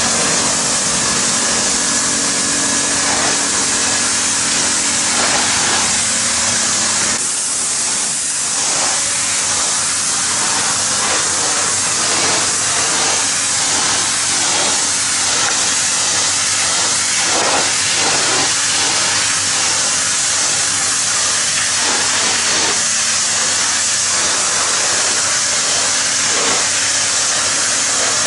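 Hot-water pressure washer jet blasting wooden deck boards and wet concrete: a loud, steady hiss of spray, with a steady machine hum underneath.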